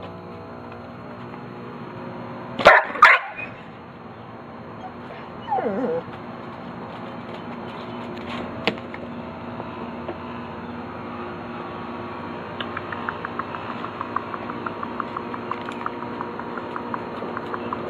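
Pit bull barking twice in quick succession, then a short whining cry that falls in pitch.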